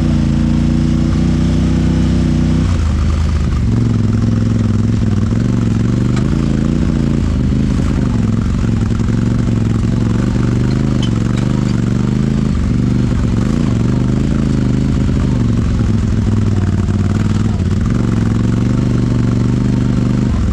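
Honda Talon 1000X-4's parallel-twin engine running under a load that keeps changing, its pitch wavering up and down as it is worked on and off the throttle, with some clatter from the machine.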